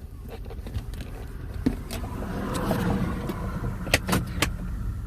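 2006 Chevrolet Impala SS driving, with a steady low rumble of wheel and road noise and a few sharp clicks; the noise comes from a bad hub assembly (wheel bearing), which the owner describes as grinding.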